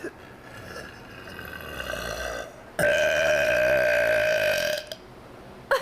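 A girl burping: a quieter drawn-out belch, then a long, loud burp held at a steady pitch for about two seconds, starting about three seconds in.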